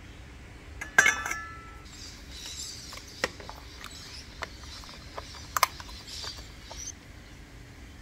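Motor housing parts being handled and fitted back together by hand. There is a sharp clink about a second in that rings briefly, then scattered light clicks and taps, with faint rustling of handling.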